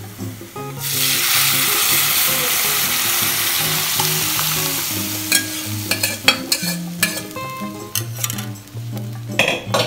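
Boiled masoor dal poured into hot mustard oil and fried onions in a steel kadai sets off a loud sizzle about a second in, which fades over the next few seconds. A ladle then stirs the dal, clicking and scraping against the pan.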